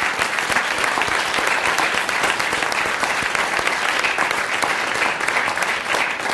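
Lecture-hall audience applauding steadily, dense clapping from many hands.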